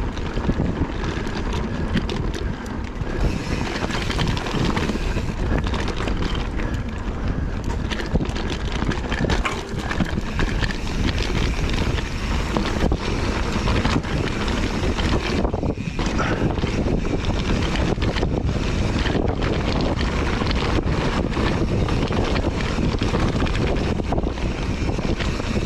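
Wind rushing over the microphone of a mountain bike riding a dirt trail, with tyre noise and frequent clicks and knocks from the bike over rough ground.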